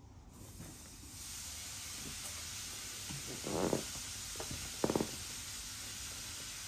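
A steady hiss sets in about a second in and holds. Two short handling sounds stand out over it, about three and a half and five seconds in, as a hand works the top controls of a JBL PartyBox Encore speaker.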